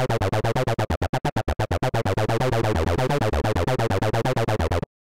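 Distorted acid-techno synth lead from Serum, a resonant filtered sawtooth, playing a fast repeating sequence of about eight notes a second. For about a second, early on the notes are cut into short, separated stabs as their length is shortened, then they lengthen again. The sequence stops abruptly just before the end.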